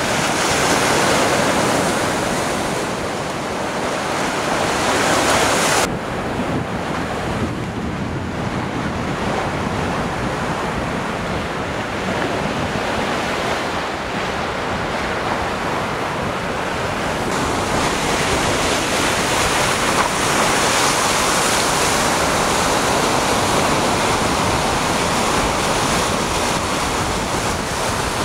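Waves breaking and washing up on a rocky shore, a steady rushing wash, with wind buffeting the microphone. The hiss drops abruptly about six seconds in.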